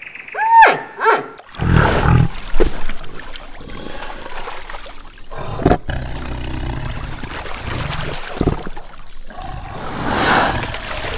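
Tiger growling and roaring in water, with splashing, after two short high calls that rise and fall right at the start.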